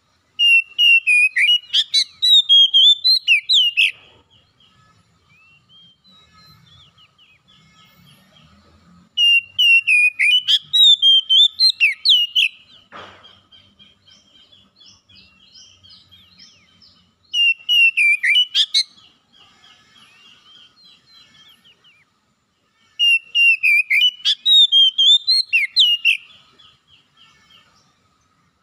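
Oriental magpie-robin singing in full, rich song: four loud bursts of varied whistled phrases a few seconds each, with softer rapid repeated notes running between them.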